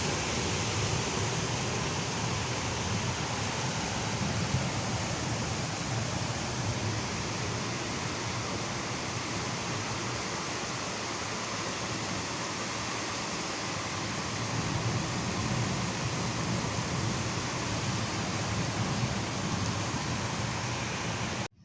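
Heavy rain pouring down in a steady, even hiss. It cuts off suddenly near the end.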